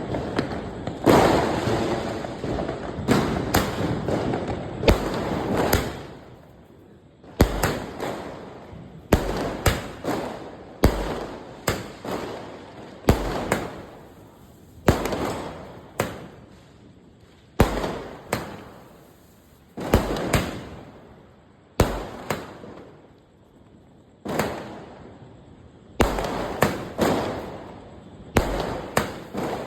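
A RamaLakshmi 60-shot multi-colour fireworks cake firing its shots one after another. Each shot is a sharp bang that rings away. The bangs come thick and fast for the first few seconds, then settle to about one every one to two seconds.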